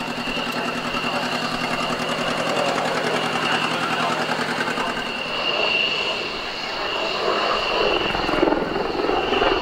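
AH-64 Apache attack helicopter flying a display, its main rotor beating fast with a steady high turbine whine over it, swelling slightly as it manoeuvres near the end.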